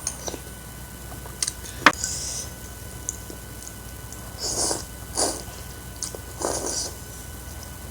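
Close-up eating sounds at a bowl of spicy noodle soup: a sharp click about two seconds in, then three short noisy mouth sounds of eating near the middle and towards the end.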